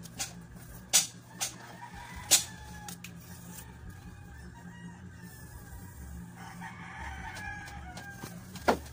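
A rooster crowing, one drawn-out call about a second in and another from about six and a half seconds in, over a few sharp clicks, the loudest of them in the first few seconds and one near the end.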